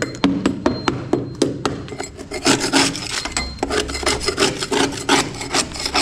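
Repeated scraping and picking at a patch of soaked wall compound and rusted metal on a window sill, several short strokes a second, growing denser and harsher about halfway through. The compound has been breaking away from a sill that has rusted through beneath it.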